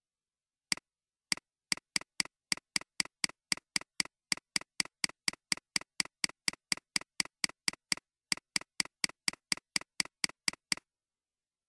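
Computer mouse clicks in a fast, even series, about four a second, each one applying the clone stamp tool. There is a short pause after the first click and another about eight seconds in.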